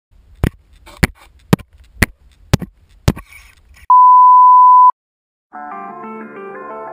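Six sharp ticks about half a second apart over a low hum, then a loud, steady one-second 1 kHz test tone of the bars-and-tone kind. After a brief silence, guitar music starts near the end.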